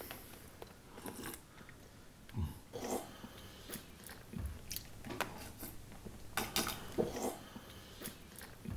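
A man drinking from a wooden cup, a run of short, irregularly spaced sipping and swallowing sounds.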